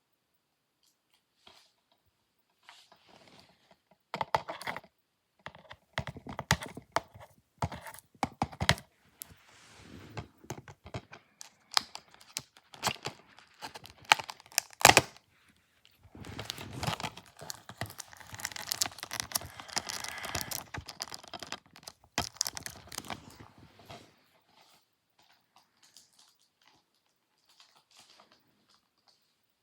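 Plastic shrink wrap being picked at, torn and crinkled off a DVD case: irregular sharp clicks and crackles, with a longer run of continuous crinkling in the middle, dying down to faint scratches near the end.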